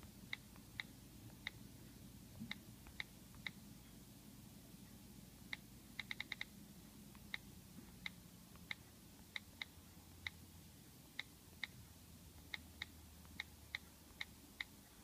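iOS touchscreen keyboard key clicks as a password is typed: single short ticks at irregular gaps, with a quick run of five about six seconds in.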